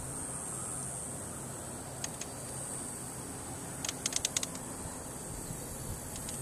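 Steady high insect drone over outdoor background noise, broken by two sharp clicks about two seconds in and a quick run of five or six clicks about four seconds in.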